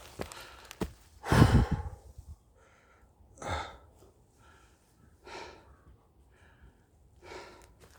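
A hiker's heavy breathing while climbing uphill: a loud exhale about a second and a half in, then further breaths about every two seconds.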